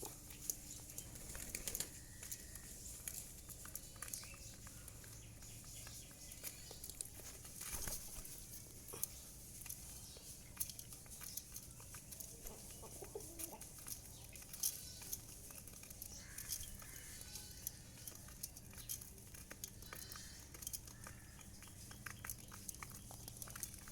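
A flock of pigeons feeding: many small scattered clicks, wings flapping, and low bird calls.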